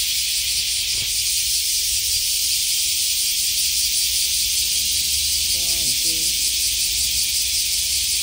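Steady, high-pitched shrill of a summer cicada chorus, with a low rumble underneath.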